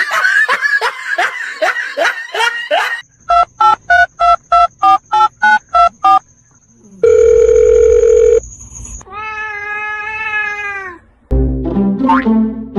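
Electronic beeps and tones: a run of quick notes, then about ten evenly spaced beeps, about three a second, a long steady tone, and a held note that rises and falls. Music with a beat starts near the end.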